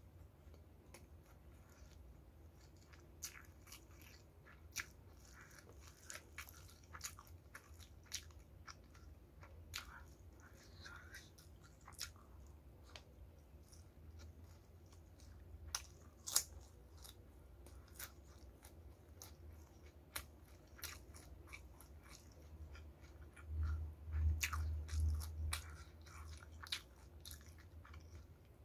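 Close-miked chewing of crispy battered fried chicken, with scattered sharp crunches throughout. A low rumble lasts about two seconds near the end.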